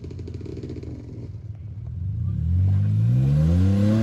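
A vehicle engine running at low revs with a fast, even pulsing, then revving up from about halfway through, rising in pitch and getting louder.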